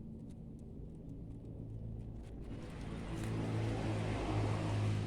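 A motor vehicle's engine running with a steady hum, growing louder from about halfway through.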